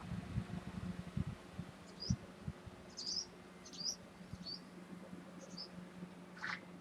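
Short high chirps from a small bird, several over a few seconds, over a steady low electrical hum. A run of low thumps and rustles fills the first two seconds or so.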